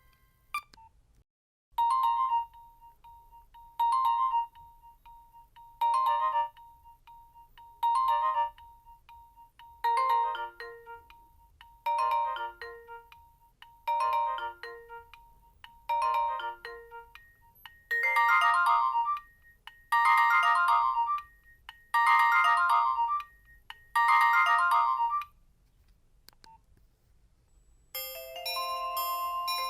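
Nokia 1600 mobile phone ringtone: a short electronic phrase repeated twelve times about every two seconds, the last four fuller and brighter. A different ringtone starts near the end.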